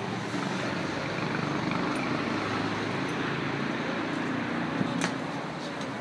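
City street traffic noise: a steady hum and rush of passing road vehicles, with two short sharp clicks about five seconds in.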